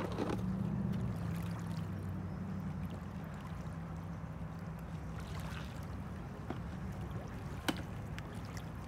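A motor hums steadily at a low pitch, with light splashing where a stingray stirs the shallow water, and one sharp click near the end.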